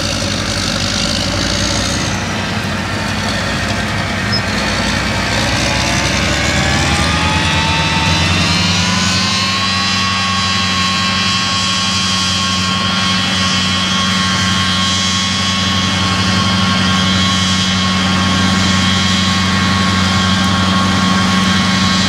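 A vehicle engine running steadily. Its pitch climbs over several seconds as it revs up in the first half, then holds at a steady note.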